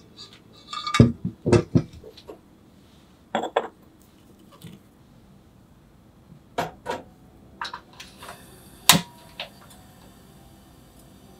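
Clinks and knocks of a ceramic dobin teapot being handled and set down on a metal wire grill over a tabletop gas burner. A loud single click about nine seconds in comes as the burner is lit.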